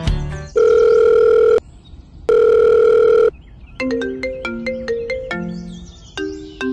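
Telephone sound effect: two long, steady electronic beeps of about a second each, then a short tinkling melody of plucked notes like a mobile ringtone.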